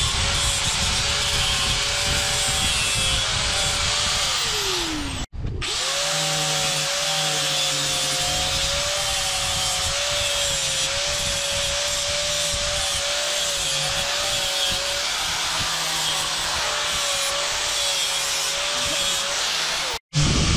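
Electric angle grinder running an abrasive disc against the rusty metal parts of an antique egg scale: a steady motor whine over a harsh rasping scrape. About five seconds in the motor winds down with a falling whine and stops briefly, then runs again; near the end it winds down and stops once more.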